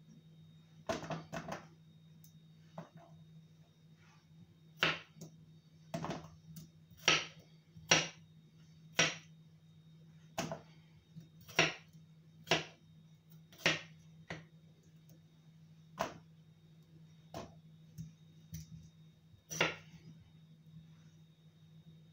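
Chef's knife slicing a cucumber on a wooden chopping board: sharp knocks of the blade striking the board, about one a second at an uneven pace, some in quick pairs, over a low steady hum.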